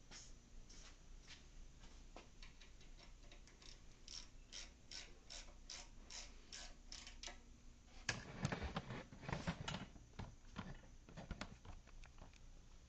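Ratchet wrench clicking as a nut is tightened, a run of short clicks that speeds up to about three a second; about eight seconds in come louder, irregular metal knocks and clatter.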